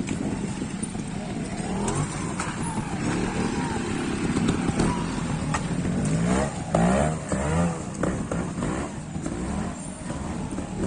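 Trials motorcycle engine running at low revs as the bike picks its way through the section, with a series of short throttle blips, the pitch rising and falling quickly, loudest about six to eight seconds in.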